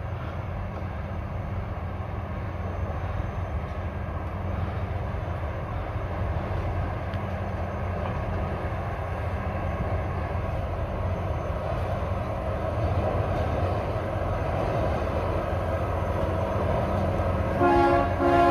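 Mount Washington Cog Railway locomotive and coach approaching, a steady rumble growing louder. Near the end its horn sounds a chord of two pitches.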